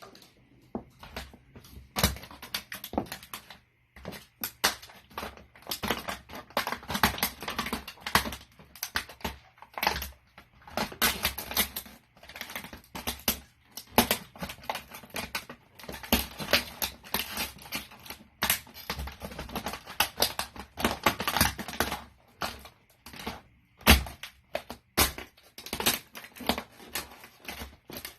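A toy car crunching and cracking under a boot: rapid, irregular snapping and crackling of breaking plastic, with heavier stomps about two seconds in and again near the end.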